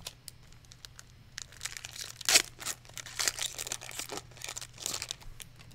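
Foil wrapper of a Magic: The Gathering Commander Legends booster pack being torn open and crinkled by hand: a run of crackling rustles, loudest about two seconds in.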